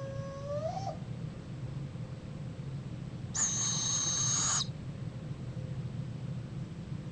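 Barred owl calls: a short pitched hoot that rises at its end, then a few seconds later a harsh hissing screech about a second long.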